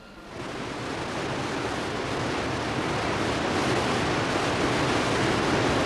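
Rushing water, a steady hissing rush that comes in abruptly just after the start and swells slightly.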